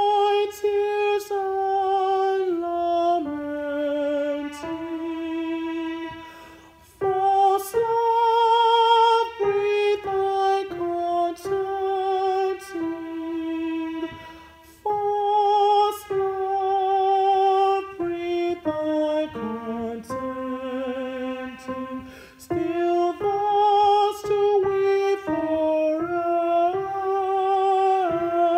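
A solo alto voice singing a slow melody unaccompanied, held notes with vibrato moving in steps, with short breaks for breath about 7 and 15 seconds in.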